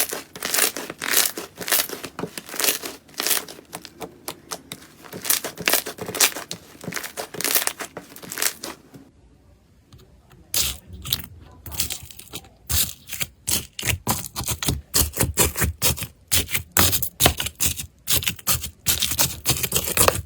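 Slime being squeezed and pressed by hand, giving a dense run of crackling clicks and pops. It goes briefly quiet about nine seconds in, then crackles again with deeper, lower pops.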